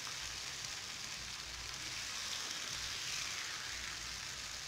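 Mutton pepper fry (mutton chukka) sizzling in its own separated oil in a nonstick pan: a steady soft hiss.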